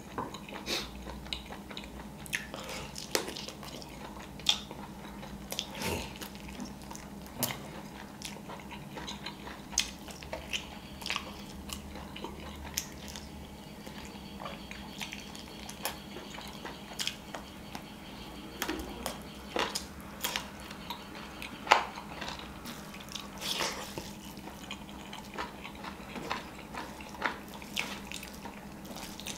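Close-miked eating sounds: wet chewing, lip smacks and bites into chicken, with fingers working through biryani rice. Short sharp smacks and clicks come at irregular intervals over a faint steady hum.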